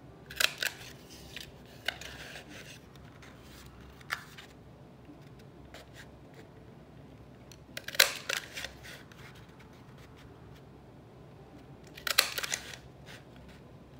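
Hand-held heart border punch clicking and crunching through a strip of scrapbook paper, in short bursts of quick clicks with single clicks between; the loudest burst comes about eight seconds in.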